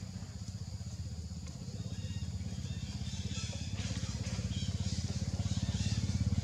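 An engine running with a fast, even low pulse that grows steadily louder, as if approaching. High short squeaks or chirps sound above it from about two seconds in.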